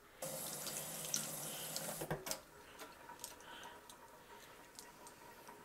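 Tap water running into a stainless steel sink for about two seconds while soapy makeup brushes are rinsed, then shut off with a knock; faint drips and small clicks follow.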